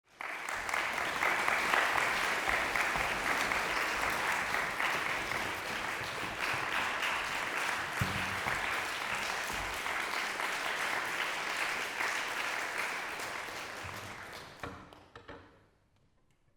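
Audience applauding, a dense patter of many hands clapping that thins out and dies away about fifteen seconds in.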